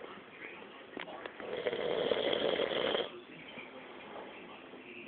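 Snoring: one long, loud snore from about a second and a half in to about three seconds, followed by a quieter breath. The next snore starts right at the end.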